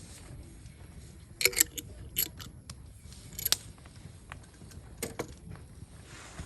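Metal pieces clinking and rattling: a handful of short, sharp clinks, the loudest about one and a half and three and a half seconds in.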